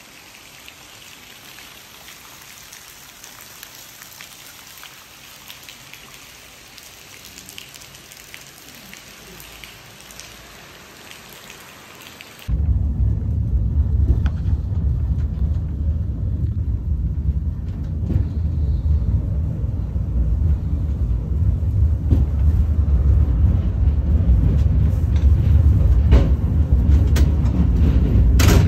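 Ride in the Monte Brè funicular car. A faint steady hiss gives way suddenly, about twelve seconds in, to a loud low rumble of the car running on its rails, which grows a little louder as it heads into the tunnel.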